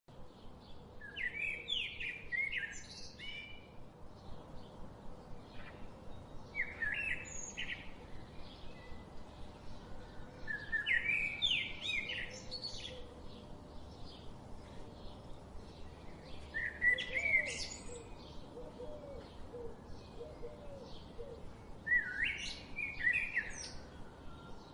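A songbird singing short, warbled, chirping phrases, one every four to six seconds.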